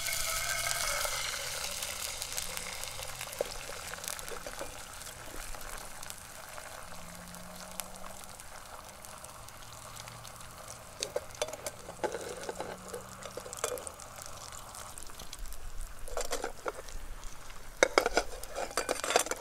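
Egg frying in butter in a small pan on a wood-fired twig stove: a hissing sizzle, loudest just after the egg is cracked in and then settling, with scattered pops and crackles that grow louder near the end.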